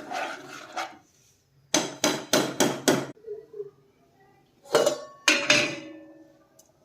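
Metal cookware and utensils knocking together: a quick run of about five knocks, then two louder clanks near the end that leave the metal ringing as it dies away.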